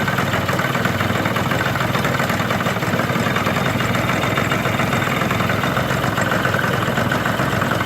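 Yamaha scooter engine idling steadily with no knock. The knock came from the kick-start ratchet catching under the variator cover, and it is gone now that the ratchet has been filed down so the cover seats fully.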